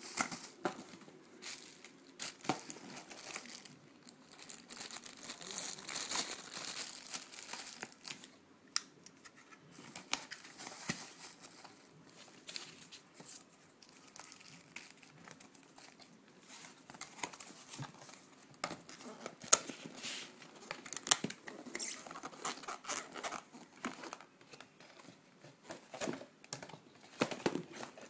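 Plastic bags and cardboard packaging crinkling and rustling as they are handled during unboxing, with scattered sharp clicks and taps of items and the box being moved.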